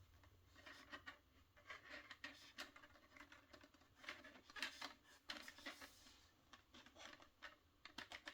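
Faint scraping and light clicks of 3D-printed plastic lamp parts being pushed and slid together by hand.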